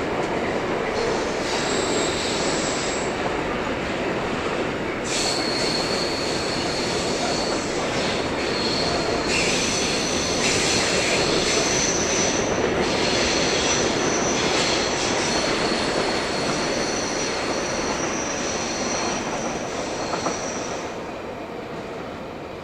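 Train passing on the line with continuous rolling noise. High steady wheel squeal joins in about five seconds in and runs until near the end, when the sound begins to fade.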